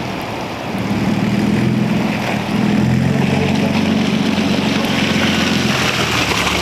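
Car engine running at a fairly steady speed, getting louder about a second in and then holding, over a background hiss.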